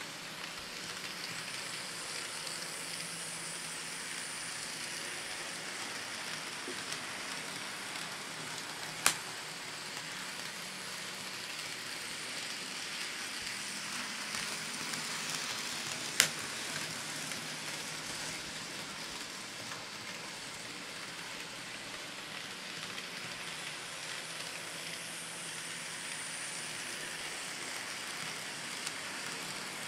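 N scale model train, a Kato GE ES44AC locomotive pulling loaded coal hoppers, running on its track: a steady faint hiss and whir of the small motor and the wheels on the rails, with two sharp clicks about seven seconds apart.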